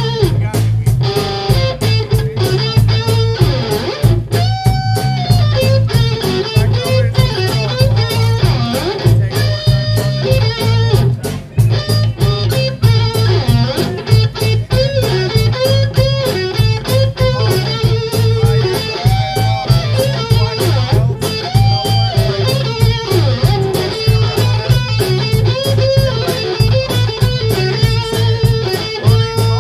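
Live band of electric guitar, bass guitar and drum kit playing an instrumental number. The electric guitar plays lead lines with a few long held notes over a steady drum beat and bass.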